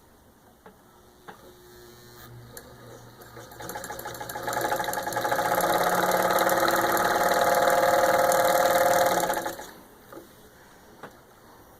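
Antique Willcox & Gibbs chain stitch sewing machine driven by an electric motor, winding up a few seconds in and running at full speed through cloth in a full speed test, then stopping fairly suddenly about two seconds before the end. A few light clicks follow.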